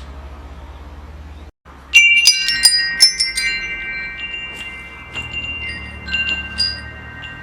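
Metal wind chimes struck in a quick cluster about two seconds in, their tubes ringing on in clear, sustained tones that slowly fade. A few lighter strikes follow near the end. Before the chimes there is a low hum, broken by a brief silent gap.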